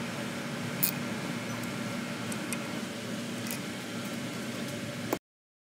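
A socket on a steel extension clicking a few times against the screws of a BMW transfer case actuator, over a steady low hum. The sound cuts off abruptly near the end.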